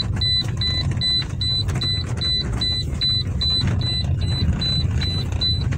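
Inside a Toyota Corolla GLI cabin at low road speed: a steady low rumble of engine and road noise, with a high electronic warning beep repeating evenly about two and a half times a second.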